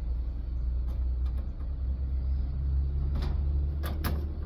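Steady low rumble in the background, with a few sharp metallic clicks and scrapes about three seconds in and twice near the end as a screwdriver works at the sheet metal of an air conditioner's A-frame coil.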